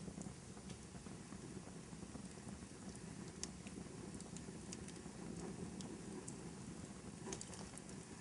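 Wood fire crackling in a fireplace: a steady low rumble of the flames with scattered small snaps and pops, a cluster of them near the end.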